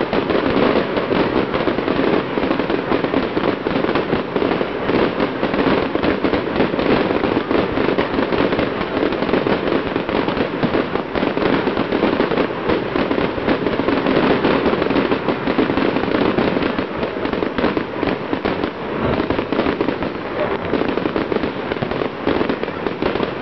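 Fireworks display going off in a dense, unbroken barrage of bursts, bangs and crackling, with no pause.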